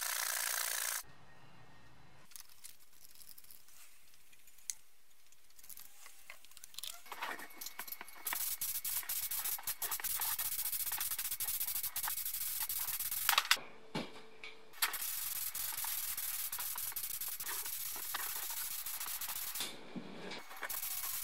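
Compressed-air gravity-feed spray gun hissing as it sprays etch primer, in long steady bursts with short breaks when the trigger is released. Quieter clicks and handling come before the spraying starts, about eight seconds in.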